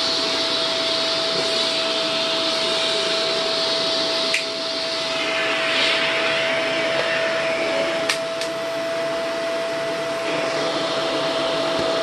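Shark NV650W upright vacuum cleaner running steadily: a constant motor whine over rushing air. The airflow shifts a few times, with a sharp click about four seconds in and another about eight seconds in.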